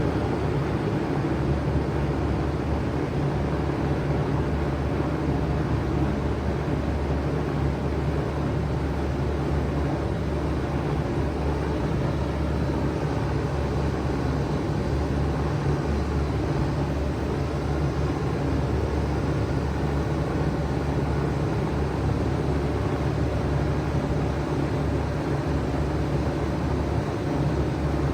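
2007 5-ton Bard wall-hung heat pump running steadily in cooling mode: a constant low hum under an even rush of air.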